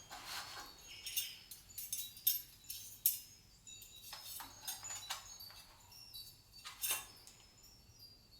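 Scattered light clinks and taps of dishes and utensils being handled, with a louder clink about seven seconds in.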